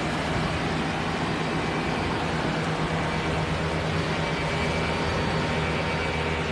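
A steady engine drone: a low, even hum that holds one pitch throughout, over a broad background rush.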